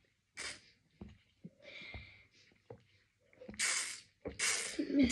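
Drinking from a Tymbark drink can: a few short sips, then two longer, airy hissing rushes near the end. These are the sound the can makes as it is tipped up and drunk from.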